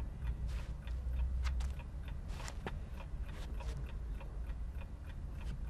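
A clock ticking steadily, about three ticks a second, over a low room hum.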